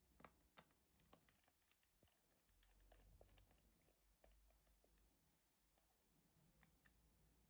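Faint, scattered small clicks of a screwdriver turning the back-cover screws of a plastic multimeter case and of hands handling the case, very quiet overall.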